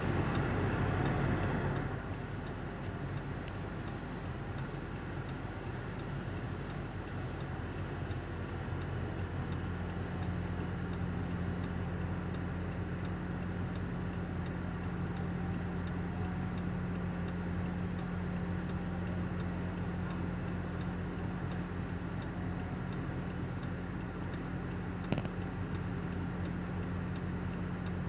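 An engine idling steadily with a light, even ticking, with one brief click near the end.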